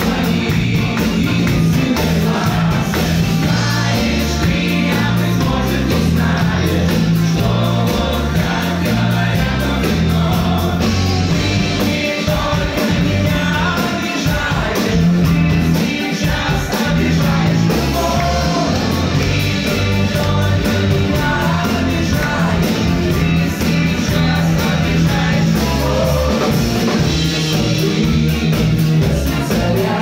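Live pop-rock band playing a song: a singer over electric guitar, keyboards and drums, with a steady beat and a strong moving bass line.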